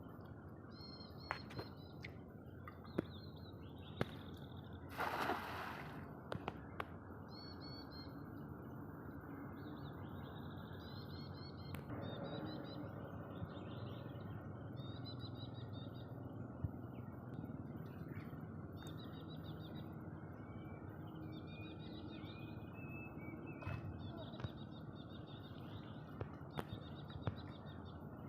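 Birds chirping in short repeated clusters over a steady background hiss, with a brief loud rush about five seconds in and a few sharp clicks.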